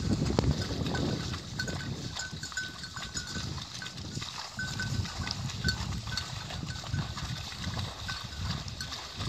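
Outdoor sound of a herd of water buffaloes grazing on open grassland. An irregular low rustling and rumbling runs throughout, with short high notes recurring through it.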